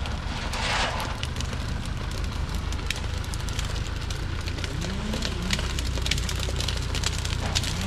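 Diesel engine of a heavily loaded Thaco truck running at low speed, with dry acacia branches and bark crackling and snapping under its tyres. The engine note rises briefly about five seconds in.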